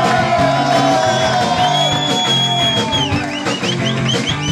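Live rock and roll band playing with electric guitars and bass. About two seconds in a high note is held for about a second, then a run of quick rising slides follows.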